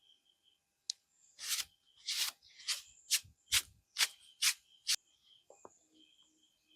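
Brisk rubbing strokes, about eight in a row at roughly two a second, preceded by a single sharp click.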